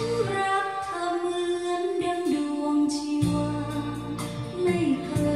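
A song with a female singer playing through a pair of Bose 301 Series IV speakers driven by a Luxman L-114A integrated amplifier. Held sung notes over a bass line that drops out for a couple of seconds early on and comes back about three seconds in.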